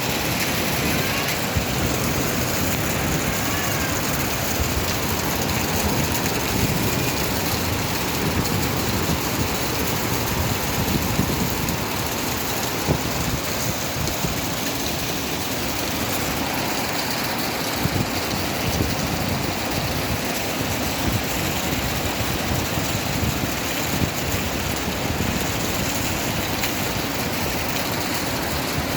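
Heavy rain pouring and floodwater rushing, a steady dense hiss with scattered spatters and no let-up.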